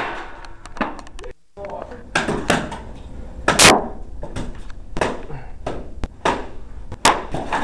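Mock sword fight with makeshift swords: a run of sharp whacks and clacks of blows landing, the loudest about three and a half seconds in, among shouting voices.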